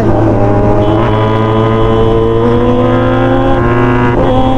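Motorcycle engine pulling under acceleration, its pitch climbing slowly for about three and a half seconds, then dropping briefly at a gear change about four seconds in before climbing again.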